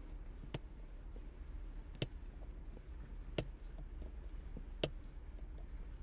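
A sharp click repeating at an even pace, four times, about every second and a half, over a low steady hum.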